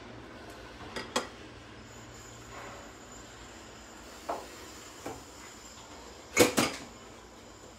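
Scattered kitchen knocks and clatters over a steady background hum: two sharp knocks about a second in, lighter ones around four and five seconds in, and a loud double bang about six and a half seconds in.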